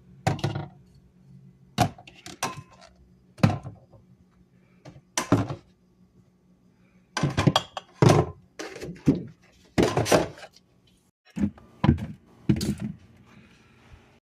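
Food containers and items being set down and shifted on refrigerator shelves: about a dozen irregular thunks and knocks, some in quick clusters, the busiest stretch a little past halfway.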